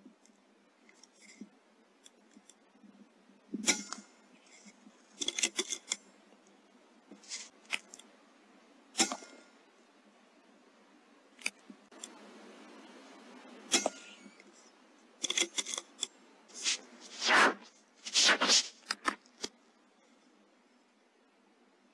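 About a dozen sharp clicks and knocks, spaced irregularly, from a .22 air rifle and its night-vision scope being handled. The loudest come a little under halfway through and about three quarters through, and a short steady hiss runs just past the middle.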